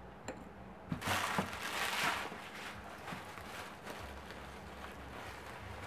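Crumpled packing paper rustling and crinkling as hands dig through a cardboard shipping box. It is loudest from about one to two seconds in, with a couple of light knocks just before, then quieter rustling.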